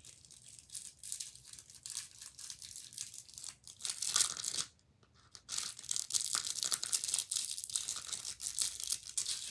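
Plastic candy wrappers crinkling and tearing close to the microphone, in quick irregular bursts. They pause briefly about five seconds in, then start again loud and stop suddenly at the end.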